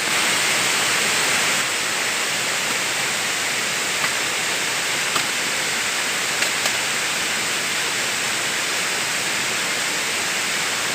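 Large waterfall rushing, a steady even sound of falling water with a few faint ticks.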